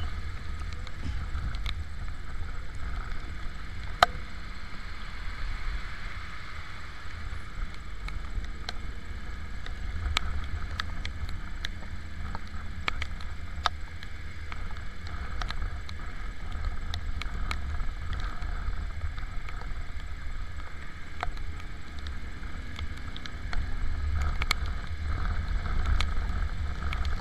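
Motorcycle ridden on a wet road in the rain: a steady rumble of wind on the microphone over road noise, broken by scattered sharp ticks of raindrops striking the camera, the loudest about four seconds in.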